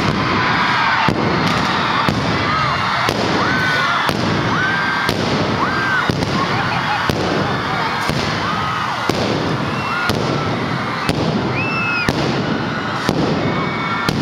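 Indoor stage pyrotechnics going off: sparkler fountains and an aerial burst, with a sharp crack about once a second over a crowd cheering and screaming.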